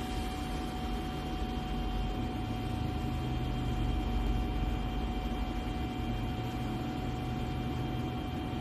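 Steady background noise: a low rumble and hiss with a faint steady hum. No typewriter keystrokes are heard.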